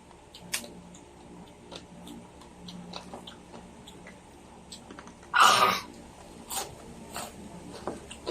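People eating lechon kawali, crispy deep-fried pork belly: quiet chewing and scattered small clicks, with one short, louder noisy sound about five and a half seconds in.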